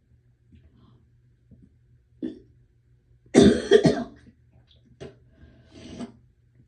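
A woman gagging and coughing. There is a short throaty sound about two seconds in, then a loud gagging cough lasting just under a second about halfway through, then two weaker ones near the end.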